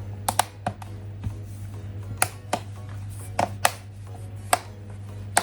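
Plastic parts of an HP laptop's screen housing clicking and snapping as they are pressed together, about a dozen sharp irregular clicks, over quiet background music.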